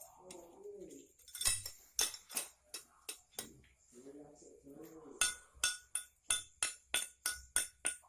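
Sharp clinking knocks, tapping in a steady rhythm of about three a second from about five seconds in, with a ringing tone on each strike. Before them come scattered single knocks and two short, low, cooing calls.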